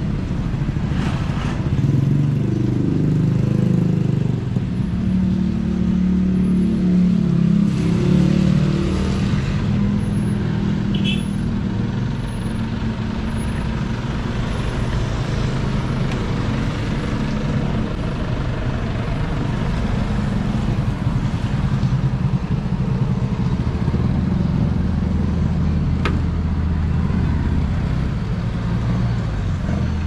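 Steady low rumble of motor vehicle noise.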